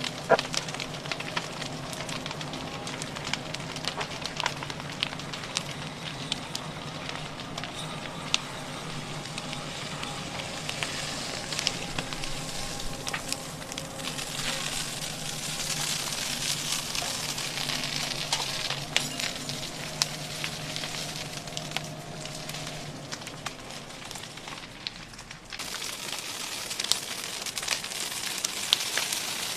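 Wildfire burning through buildings: dense crackling of burning wood, with many sharp snaps. A steady low hum runs underneath and fades out a few seconds before the end.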